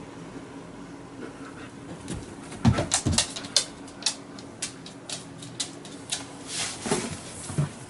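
A large dog (Alaskan Malamute) drops off a bed with a heavy thud, then her claws click and tap on a laminate floor as she walks away, a run of sharp ticks over several seconds.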